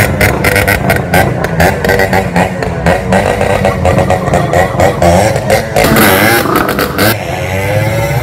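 Motorcycle engine revved hard again and again, its pitch swinging up and down as it pulls away, over a rapid run of sharp cracks. The cracking stops about seven seconds in, leaving a single rising engine tone.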